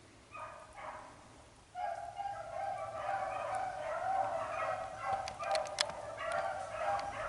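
A pack of beagles baying on a rabbit's track: a few short bays about half a second in, then from about two seconds in an unbroken chorus of overlapping voices as the hounds run the trail. A few sharp clicks sound in the middle.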